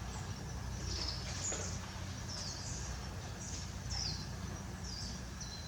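Small birds chirping: a run of short, high, falling notes about once or twice a second, over a steady low background rumble.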